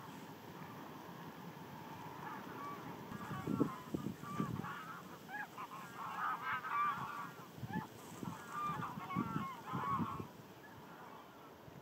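Geese honking: a run of calls starts about two seconds in, comes thickest in two spells, and stops shortly before the end. A few low thumps fall among the calls.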